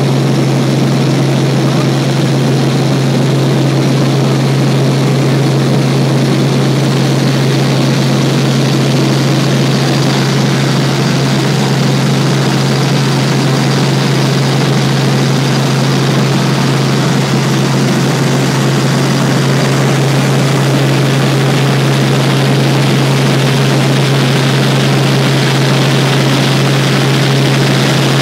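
Helicopter in flight heard from inside the cabin: a loud, steady drone of engine and rotors with a strong low hum.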